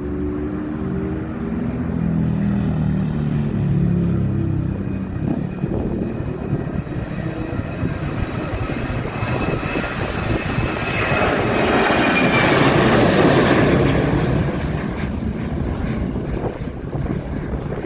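Boeing 737-800's CFM56 turbofan engines at takeoff power on a heavily loaded takeoff. The jet noise builds to its loudest about twelve seconds in as the plane passes, with a whine falling in pitch, then eases off.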